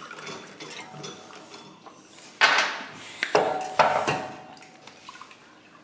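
Spoon and dish clatter: a few short scrapes and knocks, the loudest about two and a half seconds in.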